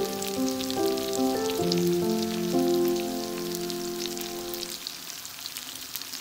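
Meat and okra curry sizzling and crackling in a frying pan, under background music with a simple melody that fades out about five seconds in, leaving only the sizzle.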